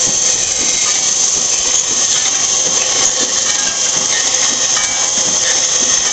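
WWII-era ammunition case machine running steadily with no jam, its spindle and cam motors driving the cam mechanism in a continuous mechanical clatter of many small clicks.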